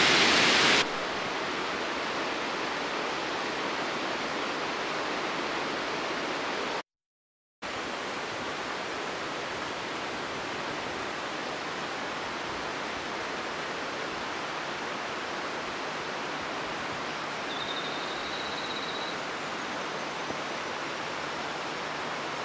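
Steady rush of a waterfall and its cascading stream, an even hiss without a beat, broken by a moment of silence about seven seconds in.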